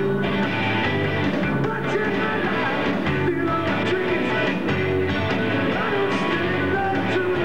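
Hard rock band playing a song, with electric guitar, bass, keyboards and drums under a lead vocal.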